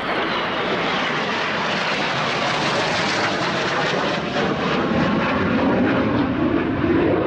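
Jet noise from an EAV-8B+ Harrier II's Rolls-Royce Pegasus turbofan in flight, a steady heavy rush. The hissing top end fades and the sound turns deeper toward the end as the jet banks away.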